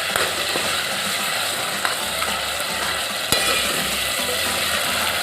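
Peas sizzling as they fry in hot oil and masala paste in a cooking pot, stirred with clicks and scrapes against the pot, and one sharp knock a little past the middle.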